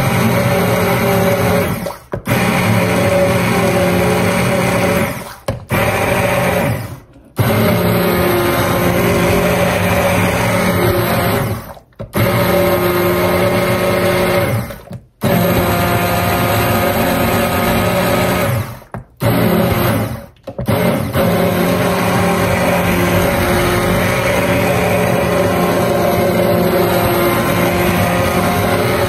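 Handheld immersion blender running in a slow-cooker crock of cooked apples, pureeing them into apple butter. The motor runs steadily, stopping briefly several times and starting again each time.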